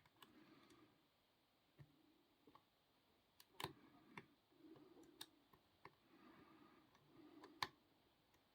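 Faint, irregular metallic clicks and light scraping of a lock pick and tension wrench working the pins of a 30mm Master Lock 130 padlock, with the sharpest click near the end.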